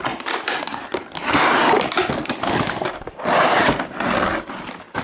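Cardboard box and paper packaging being handled and opened: two longer stretches of rustling and scraping, with taps and knocks between.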